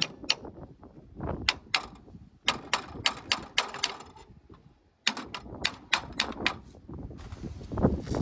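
Sharp metal-on-metal clicks or taps from hand tools working on the tractor's PTO assembly. They come in quick runs of about four a second, with short pauses between runs.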